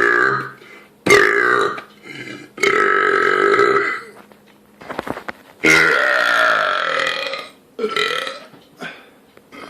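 A person burping over and over: a string of loud belches, some short and some drawn out, the longest lasting about two seconds just past the middle.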